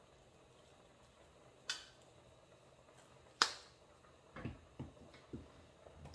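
Spice shaker bottles being handled and set down on a kitchen counter: two sharp clicks, then a few quick, duller knocks near the end.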